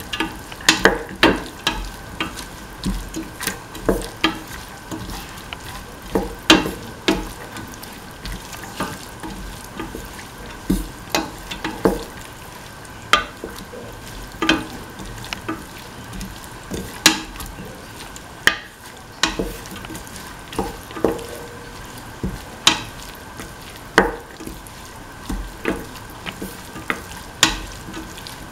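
A spatula stirring a vegetable and split chickpea mixture in a stainless steel pot, knocking and scraping against the pot about once a second, over a steady sizzle of frying.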